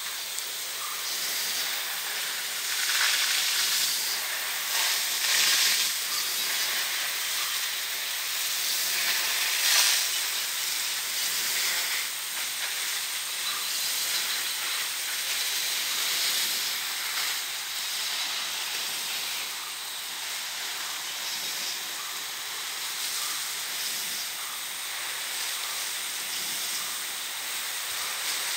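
Power jet sprinkler spraying: a steady hiss of the water jet and spray raining through the leaves, swelling louder now and then.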